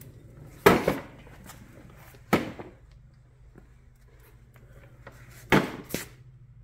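Sharp knocks or clunks in a small room: two close together about a second in, one in the middle and two more near the end, with a faint steady low hum beneath.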